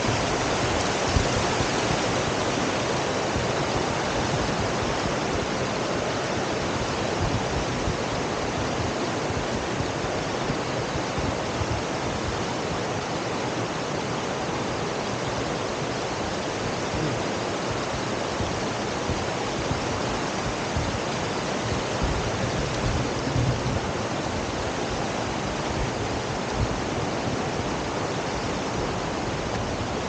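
Shallow rocky river running over small rapids: a steady rush of flowing water.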